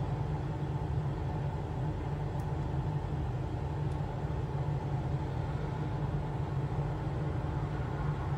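A steady low hum runs without change, with a faint hiss above it.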